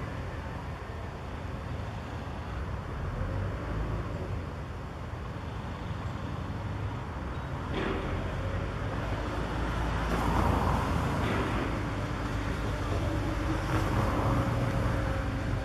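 Mobile crane's engine running with a steady low rumble, swelling louder around ten and fourteen seconds in, with one sharp knock about eight seconds in.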